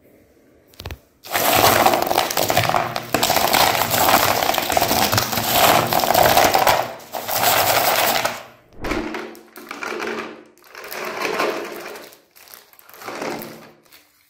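Dozens of small foil-wrapped chocolate bars tumbling and clattering into a plastic tray in one long, dense rattle, followed by three shorter bursts of rattling as the bars are stirred and moved about.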